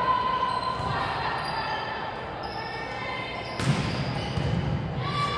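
Volleyball rally on a hardwood gym floor: squeaks of court shoes and a sharp hit of the ball about three and a half seconds in, echoing in the large hall.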